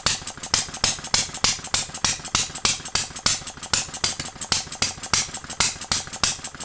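Small single-cylinder model hit-and-miss engine (a Jerry Howell Farm Boy) running on its own, with a steady, sharp, even clatter of about four to five beats a second.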